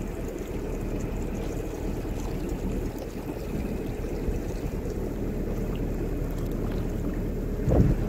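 Narrowboat engine running steadily while the boat cruises, mixed with wind and water washing along the hull. A brief louder bump comes near the end.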